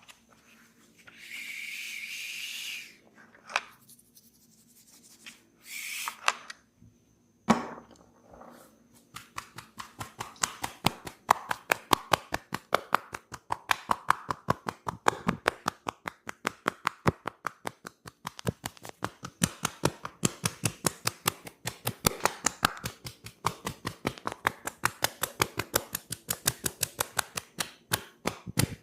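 Rapid hand tapping on the head during a head massage, quick sharp slaps at about five a second, starting about nine seconds in after a few brief swishes and a single knock.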